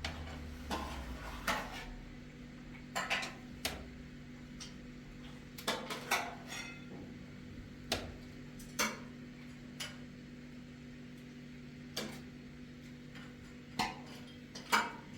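Irregular light clinks and knocks of tableware, about a dozen scattered strikes, over a steady low hum.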